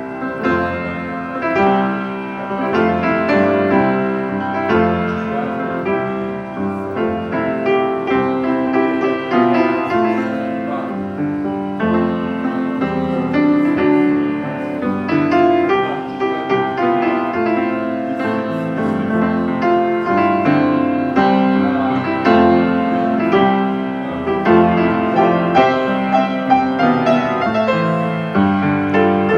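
Steinway grand piano played solo: a continuous flowing piece of sustained chords and melody.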